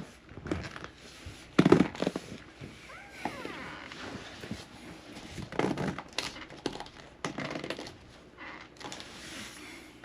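Handling noises as a clear door sweep is pushed onto the bottom edge of a door: a series of short knocks and scrapes, the loudest about two seconds in and near six seconds, with a brief squeak in between.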